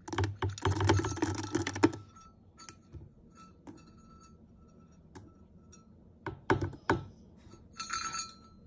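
Dry kibble pouring from a scoop into a stainless steel dog bowl, a dense rattle for about two seconds. Scattered clinks follow, with a few sharper metallic clinks later on.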